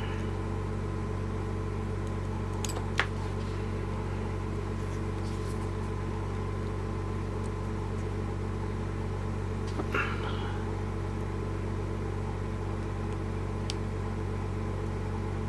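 Steady low electrical hum, with a few faint sharp clicks from a straight hook pick and tension wrench working the pins of a small five-pin Yale padlock.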